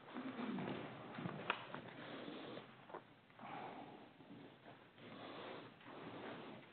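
Faint rustling and shuffling of movement and handling, with a couple of light clicks about a second and a half in.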